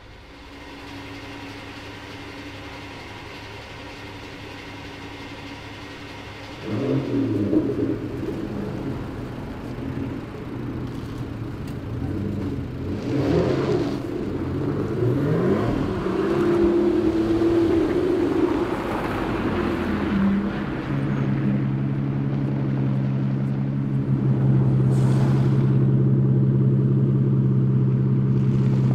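Aston Martin Vanquish Volante's V12 engine starts about seven seconds in with a loud flare of revs. It then runs at changing revs as the car moves off, and settles into a steady, even drone for the last several seconds.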